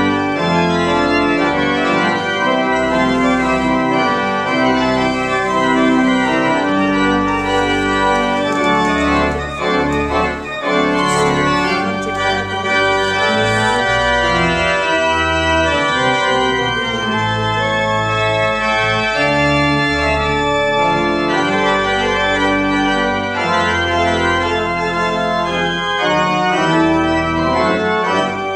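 Church organ played at full volume, with held chords over deep bass notes that change every second or two.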